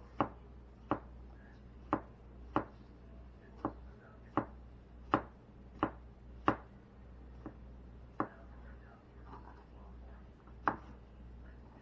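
Kitchen knife slicing a large mushroom thin on a cutting board, the blade knocking the board with each cut. About a dozen sharp knocks, roughly one a second, with a longer pause before the last one.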